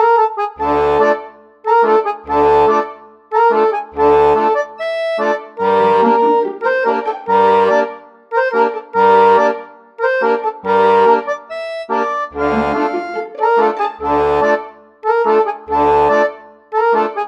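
Background instrumental music with a steady beat, its low bass note recurring about every second and a half.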